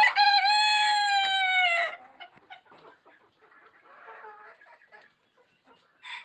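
Rooster crowing once, one drawn-out call of about two seconds that sags in pitch at its end, followed by faint clucking and scratching from the flock.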